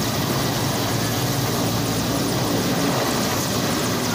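Mil Mi-17 military transport helicopter flying low overhead, its rotor and turbine engines running loud and steady.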